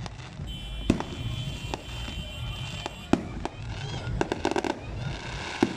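Aerial fireworks bursting: sharp bangs about every two seconds, with a quick run of crackling pops about four seconds in.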